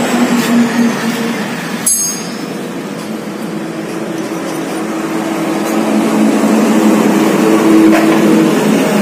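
A vehicle engine running nearby, a steady drone that gets louder in the second half. A single sharp metal click about two seconds in.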